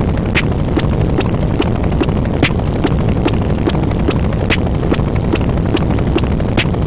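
Sound effect of a steady rumbling noise with short, regular knocks about two to three times a second, like hooves or wheels on a moving carriage.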